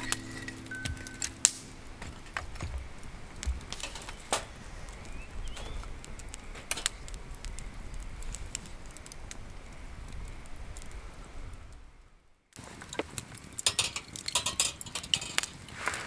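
Wood fire crackling in a small steel fire pit, with scattered sharp pops and clicks over a low hiss. The sound cuts out briefly about twelve seconds in, and after that the pops come thicker.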